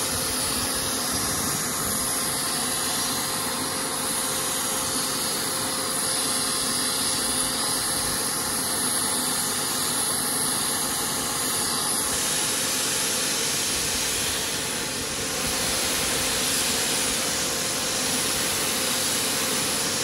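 Bosch turbine paint sprayer running steadily while spraying: a constant rush of air with a steady hum from the turbine, dipping briefly once near the end.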